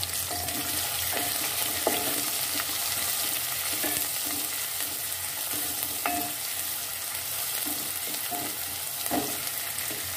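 Sliced onions and cumin seeds sizzling in hot oil in a metal pot, with a wooden spoon scraping and knocking against the pot now and then as they are stirred and fried.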